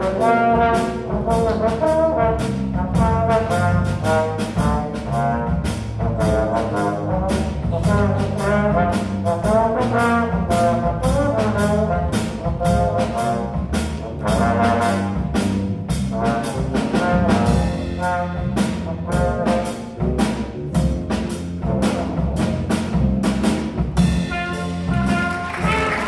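A small jazz combo playing live: a horn melody with a wavering pitch over grand piano, electric bass guitar and a drum kit keeping a steady beat.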